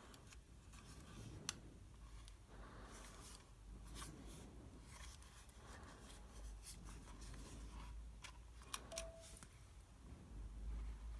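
Faint handling sounds from an AIWA HS-PX370 cassette Walkman turned over in the hands: light rubbing on its casing and a few sharp clicks, the clearest about a second and a half in and near nine seconds, as its gum-stick battery slides out of the side slot.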